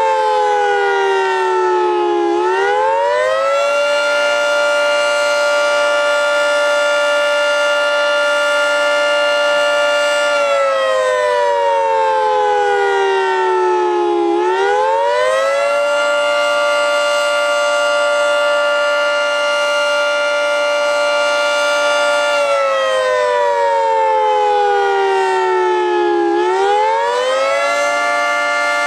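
Federal Signal 3T22A outdoor warning siren sounding the attack signal, a loud chord of tones. It holds a high pitch for several seconds, slowly sags in pitch for a few seconds, then climbs quickly back up, repeating about every twelve seconds.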